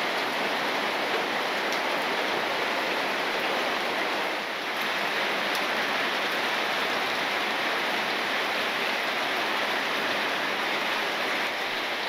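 Steady rain from a heavy drizzle, an even hiss that does not let up.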